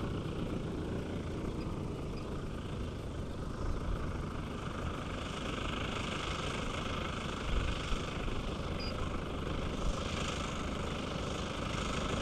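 Engine of a 35%-scale radio-controlled Yak aerobatic plane running at low throttle as the plane rolls and taxis along the runway after landing, heard from a distance.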